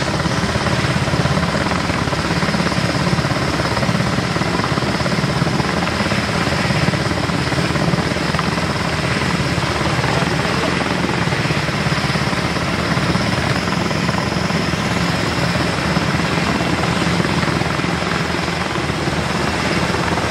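Military helicopters lifting off close by: their turbine engines and rotors run in a loud, steady wash of rotor noise, with a high turbine whine above it.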